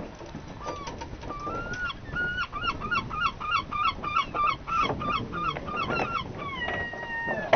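Gull calling: a quick series of short, pitched, honking calls at about three a second, then one longer drawn-out call near the end.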